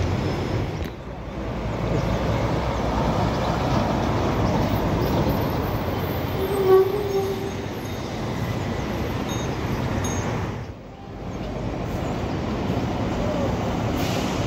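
Street traffic noise, with city buses' diesel engines running past, and a short horn toot about seven seconds in.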